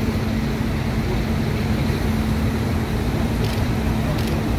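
Farm tractor diesel engines running steadily as a column of tractors drives slowly past on a rain-soaked street, a continuous low hum over the hiss of wet tyres.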